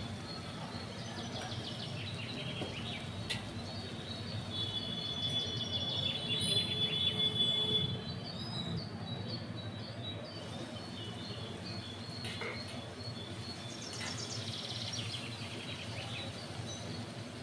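Small birds chirping and trilling in quick runs of high notes, thickest through the first half and again near the end, over a steady low rumble. A few sharp metal clinks of cookware stand out.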